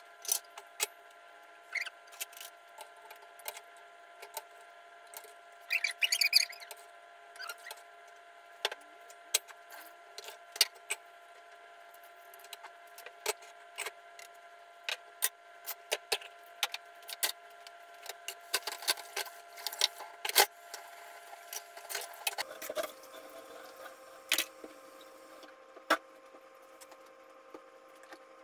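Kitchen prep sounds: scattered clicks, knocks and short scrapes of a metal box grater and utensils on a plastic cutting board, some in quick runs, over a faint steady hum that drops in pitch about two-thirds of the way through.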